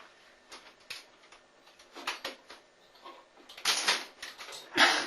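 A man's breath in two short, sharp noisy bursts, one a little past halfway through and one near the end, after a quiet stretch with faint clicks.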